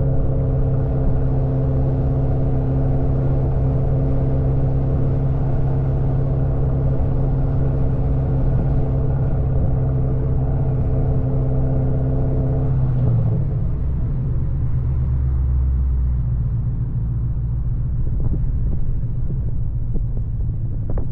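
2003 Ford Mustang SVT Cobra's supercharged V8 running through an SLP Loudmouth exhaust, holding a steady engine note. About thirteen seconds in the note drops lower and turns uneven as the engine speed falls.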